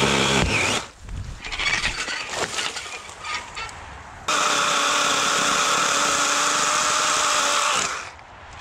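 Cordless DeWalt 20V chainsaw with a 14-inch Oregon bar and chain, its electric motor and chain whirring with a steady tone. It stops about a second in, gives way to crackling of brush and twigs, then whirs again for about three and a half seconds from about halfway and stops near the end.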